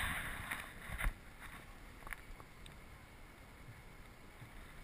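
Faint steady hiss of wind and water around a dragon boat sitting still on the river, with a knock and a couple of small clicks about a second in.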